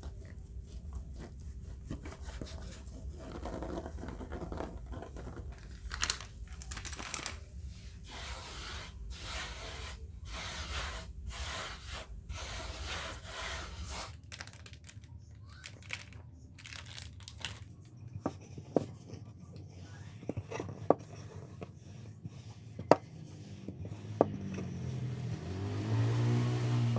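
Plastic cling film crinkling and rustling as it is peeled off a ball of noodle dough. Later come a few sharp taps, and near the end a rolling pin rolling over the floured dough.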